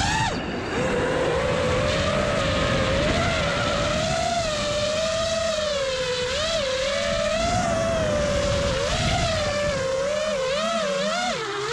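Armattan Badger FPV quadcopter's brushless motors and propellers whining from its onboard camera, the pitch rising and falling constantly with throttle, over a rush of wind and prop wash. About half a second in the pitch drops sharply as the throttle is chopped, and it dips again near the end.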